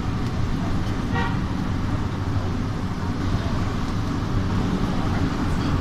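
Light-rail train running with a steady low rumble and hum. About a second in there is one short horn toot.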